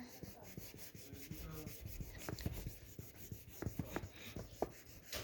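A drawing tool scratching on paper in quick back-and-forth colouring strokes, with a few sharper scrapes.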